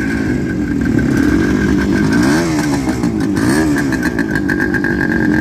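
Suzuki GT two-stroke motorcycle engine idling with its ring-ding exhaust note, blipped twice about halfway through.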